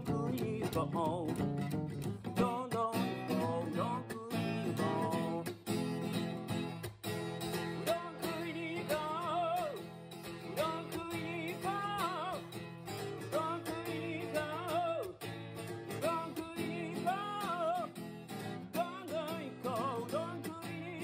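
Strummed acoustic guitar accompanying a singing voice in a folk-style song.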